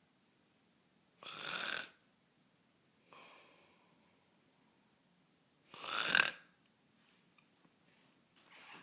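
A person snoring: two loud snores about four and a half seconds apart, with softer breaths in between.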